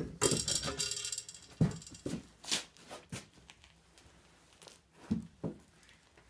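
Metal tools and engine parts clinking and clunking as the cylinder head is unbolted and lifted off a VAZ 2108 engine: a jingling metallic rattle in the first second, then a string of separate knocks that thin out toward the end.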